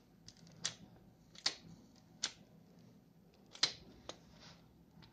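Metal retract landing gear for an RC glider worked by hand, its linkage giving five sharp clicks about a second apart as the wheel leg folds and swings out. The loudest click comes a little past halfway.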